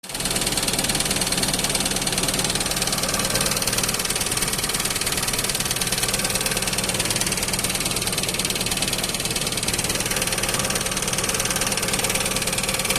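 JCB diesel engine running steadily with a fast, even clatter. This is the engine noise fault the video sets out to address.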